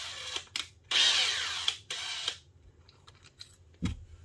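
Power drill boring a pilot hole up through an RV roof: a few short bursts, then a longer run that stops about two and a half seconds in.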